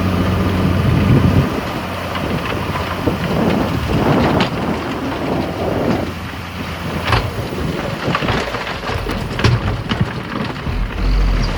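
A heavy diesel truck engine runs steadily for about the first second and a half. Then a loud, rumbling, rushing noise with scattered knocks follows, as a load of sand slides out of the tipping dump truck bed.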